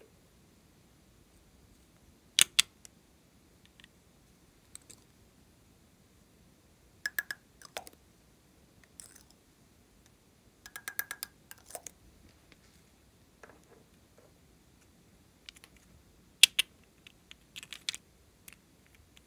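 Small plastic makeup containers clicking as their lids are snapped open and shut. About eleven seconds in comes a quick run of light taps as glitter is tapped out of them. The clicks are sharp and separate, with quiet between them.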